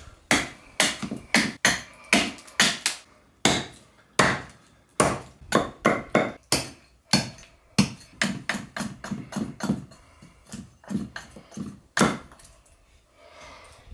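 Hand-forged Kent pattern axe chopping into a block of wood to carve it: a quick run of sharp chops, about two to three a second, with a short pause about ten seconds in and a hard chop near the end.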